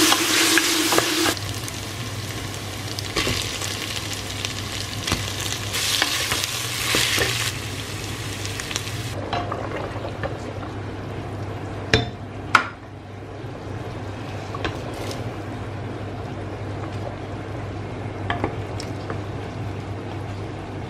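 Chopped onion, carrot and minced meat frying in a stainless steel pot while being stirred with a wooden spoon. The sizzle is loudest at the start and dies down after several seconds into softer stirring of the tomato-paste sauce, with two sharp knocks a little past halfway and a steady low hum underneath.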